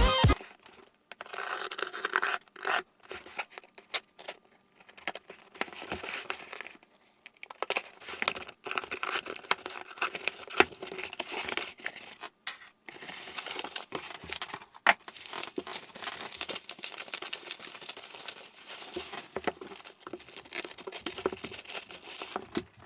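A shipping parcel being opened by hand: tape tearing and packing material crinkling and rustling, on and off with short pauses.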